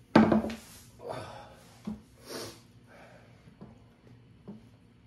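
A man sitting down at a wooden table with a stainless steel bowl of ramyeon: a loud rustle and thump at the start, then a couple of short noisy breaths and a few light clicks of spoon and chopsticks against the bowl.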